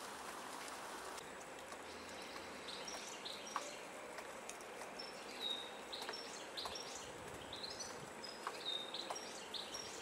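European goldfinches twittering: many short, high chirps repeated from about three seconds in, over a steady hiss of wet falling snow, with a few soft ticks of dripping water.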